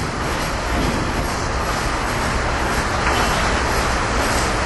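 Steady street traffic noise: a continuous rumble and hiss of passing vehicles.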